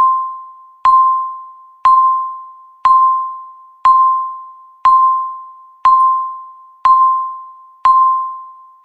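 Countdown timer's electronic beep, one per second: each is a single chime-like tone with a sharp start that fades away over most of the second before the next one.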